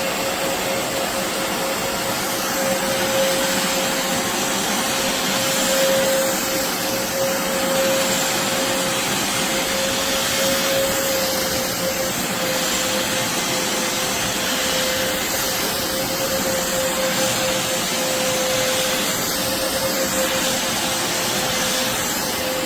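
BISSELL Revolution HydroSteam Pet carpet cleaner running steadily as it works over a carpet stain: a constant rush of suction air with a steady motor whine.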